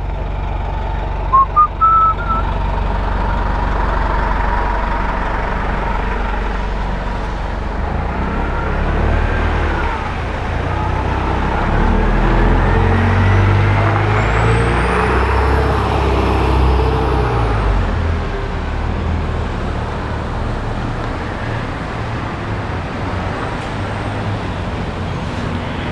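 Steady rumble of wind on a head-mounted camera's microphone while cycling through wet city streets, mixed with road traffic, swelling louder about halfway through. A few short rising beeps sound about a second and a half in.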